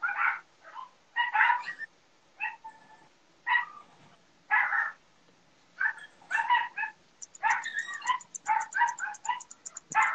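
Dogs whining and yipping in a string of short high-pitched calls, about one every half second to a second.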